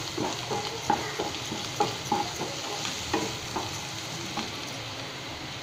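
Vegetables sizzling as they stir-fry in a black wok-style pan, stirred with a spatula: irregular scrapes and taps of the spatula against the pan over a steady sizzle, the strokes thinning out in the last couple of seconds.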